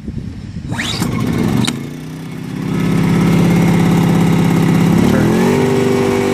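Powerhorse 2000-watt inverter generator's small engine catching after a pull start on choke and settling into a steady drone, then stepping up in speed about five seconds in to full throttle with economy mode off.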